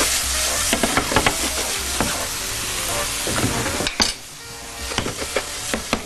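Diced apples sizzling as they sauté in butter in a non-stick frying pan, with a utensil stirring and clicking against the pan. The sizzle drops quieter about four seconds in.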